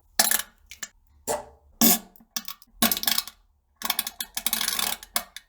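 A series of farts: several short blasts spaced about half a second apart, then a longer sputtering one made of rapid pops lasting about a second and a half near the end.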